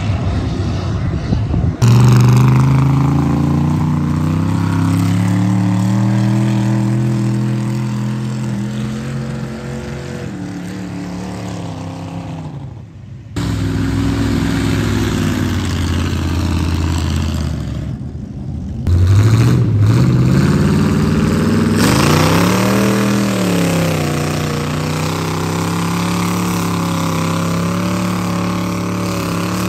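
Engines of lifted mud trucks revving hard as they drive through a mud pit, in several short clips cut one after another. The engine note rises and falls throughout, with a sharp rev climbing and dropping about twenty seconds in.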